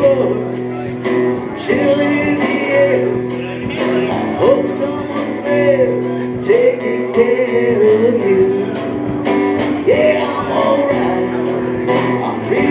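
A live rock band playing: guitar, bass and drum kit with cymbal hits, and a melody line that slides between held notes.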